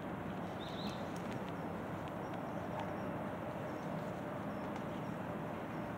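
Quiet outdoor background: a steady hiss with a few faint, irregular ticks and a brief high chirp about a second in.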